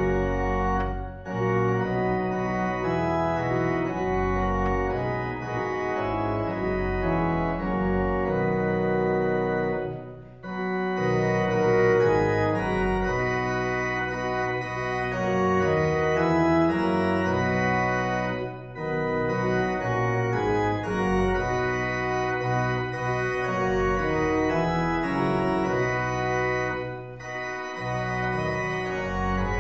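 Church organ playing sustained chords in long phrases, with short breaks between phrases about every eight seconds.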